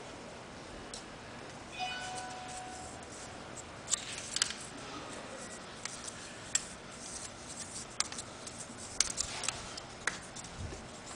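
Teflon thread-seal tape being pulled off the roll and wrapped onto a fitting's threads by hand: faint crinkling with a scattering of sharp little clicks and snaps.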